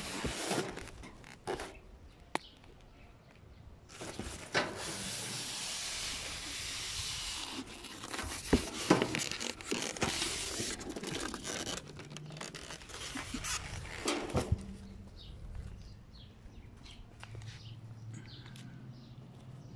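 Plastic wrap crinkling and rustling as it is pulled off a newly unboxed tankless water heater, with a few sharp knocks from handling the packing. It goes quieter about three-quarters of the way through.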